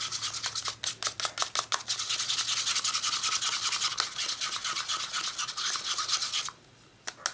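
Rapid, continuous rubbing and scraping that stops abruptly about six and a half seconds in.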